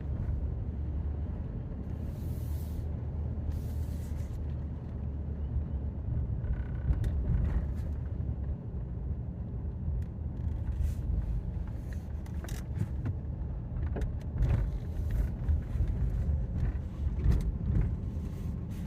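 A vehicle driving along, heard from inside: a steady low rumble of engine and road noise, with scattered short knocks and rattles.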